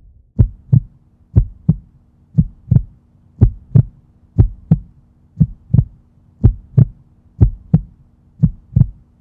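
Heartbeat sound effect: a steady 'lub-dub' of paired low thumps, about one pair a second, over a faint steady hum.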